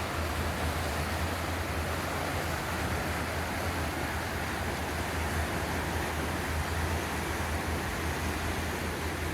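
Swollen river in flood rushing past, a steady, even roar of fast-moving water with a constant low rumble underneath.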